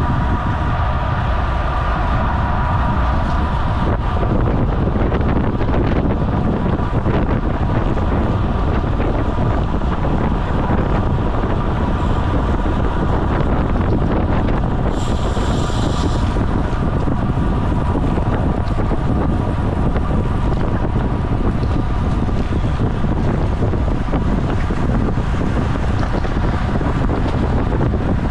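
Steady wind rush over the microphone of a camera on a road racing bicycle at race speed. A faint hum sits under it for the first few seconds, and a brief high-pitched sound comes about halfway through.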